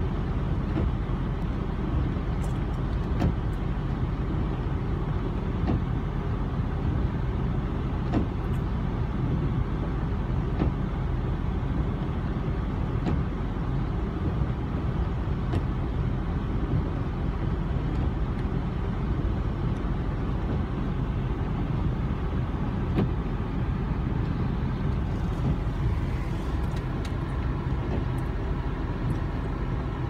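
Steady low engine rumble heard from inside a pickup truck's cab, from the idling truck and a wheel loader clearing snow close in front, with a few faint ticks scattered through it.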